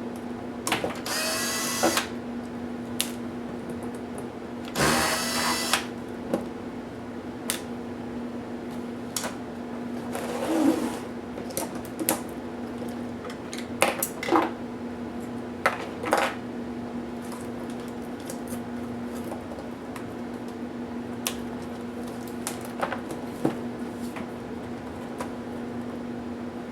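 Electric screwdriver whirring in two short bursts about a second apart, driving out laptop screws, with clicks and taps of small parts being handled and a brief scrape midway. A steady low hum runs underneath.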